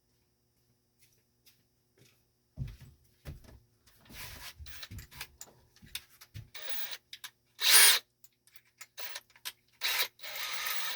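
Power drill run in short bursts, mixed with knocks and clicks from a bit being fitted and tools being handled, starting a couple of seconds in.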